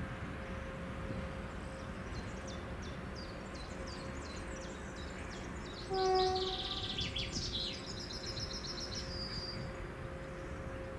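Small birds singing in quick, high chirps over steady outdoor background noise. About six seconds in, a short, louder pitched call cuts in briefly.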